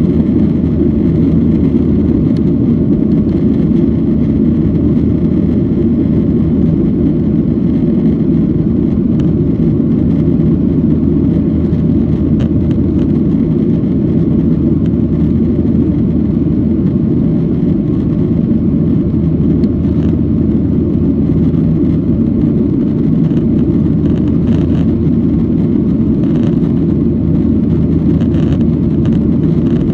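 Steady cabin noise inside a Boeing 737-800 climbing out after takeoff: the jet engines at climb power and the rushing air make an even low rumble. A few faint ticks come in the second half.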